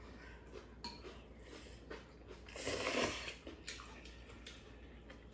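Two people eating spicy stir-fried noodles with chopsticks: faint chewing and chopsticks clicking against bowls, with one louder noisy slurp of noodles about two and a half seconds in.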